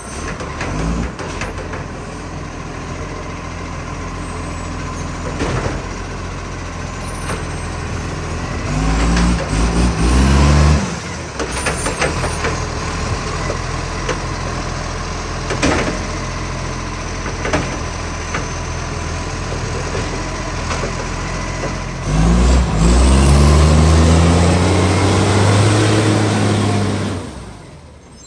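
Garbage truck's diesel engine running with a huge exhaust leak. It revs up twice, about a third of the way in and again near the end, with a few short knocks in between.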